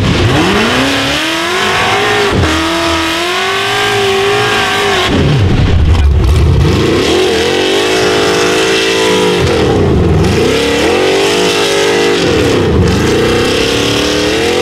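Rock bouncer buggy engine revving hard in repeated rising and falling surges as the buggy claws up a muddy stepped rock wall. About five seconds in, the sound changes to a second buggy's engine, which revs up and down in several deeper surges.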